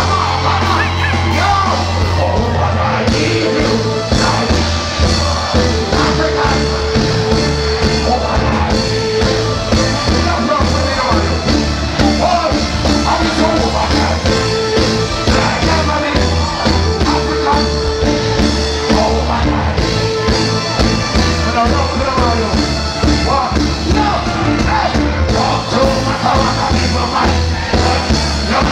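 Live reggae band playing with a male singer over it: electric guitars, keyboards and drums under a heavy, sustained bass line.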